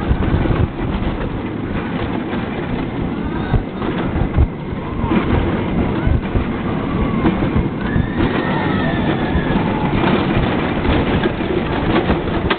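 Roller coaster in motion, heard from a seat on the ride: a steady loud rushing rumble of the train on its track, with a few high-pitched wavering cries that rise and fall.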